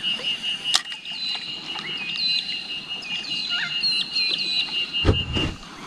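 Birds calling: a fast, evenly pulsed high trill that stops near the end, over repeated short whistled calls. A sharp click about a second in, and a low knock near the end.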